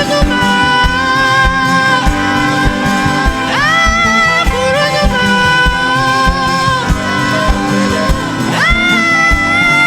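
Gospel worship music with singing: long held notes, each sliding up into its pitch, about every four to five seconds, over a band keeping a steady beat.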